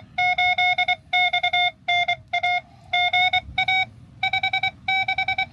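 Morse code (CW) signal received on a Xiegu X6100 transceiver and heard through its speaker: a strong, steady mid-pitched tone keyed on and off in dots and dashes at a brisk, even sending speed.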